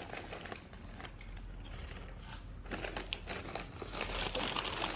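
Crinkly snack bag rustling and crackling in handling, in irregular bursts that grow busier in the second half.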